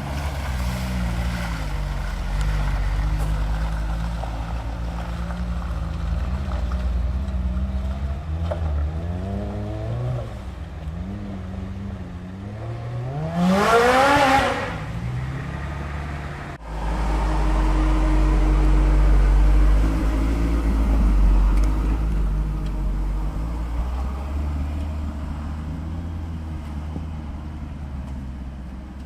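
Toyota Hilux pickup's swapped-in 4A-GE four-cylinder engine running and revving, its pitch rising and falling. About 14 s in it climbs steeply to a loud high rev, then the sound cuts off abruptly and comes back as a deeper, heavier rumble that gradually fades near the end.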